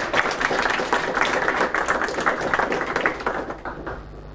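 Audience applauding with dense clapping that dies away near the end.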